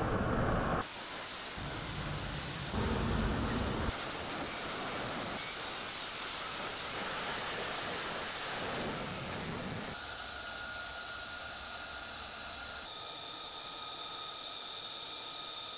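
F-35B's F135 jet engine heard as a steady, hiss-like roar that changes abruptly at several cuts. In the last few seconds a steady high whine rides over the roar.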